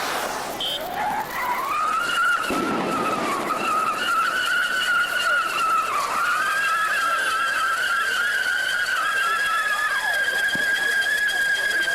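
A firework whistling: one long, high whistle that rises in pitch over the first two seconds, then holds steady with a slight wavering for about ten seconds.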